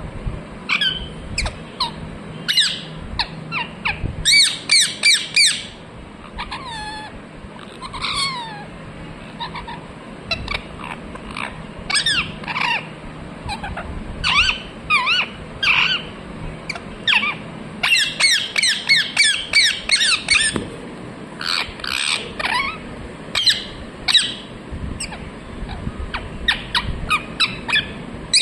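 Ringneck parrot chirping and squawking: many short, shrill calls with quick swoops in pitch, in irregular runs, some rapid clusters of several calls in a row.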